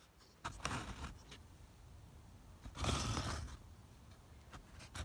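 Handling noise from a phone camera being gripped and moved into place: rubbing and scraping on the microphone in two bursts, the louder one a little under three seconds in.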